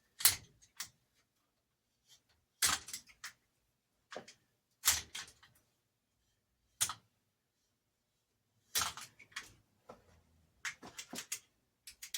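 Scattered short, sharp clicks and scrapes, roughly every two seconds with quiet gaps, from a blade and copper wire being worked at a vise while the insulation is stripped by hand.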